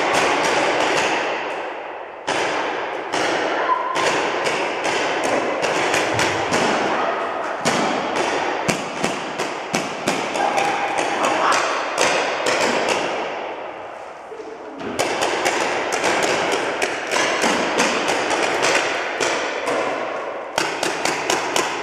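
Paintball markers firing in rapid runs of shots that echo around a large indoor hall, with brief lulls about two seconds in and again about two-thirds of the way through.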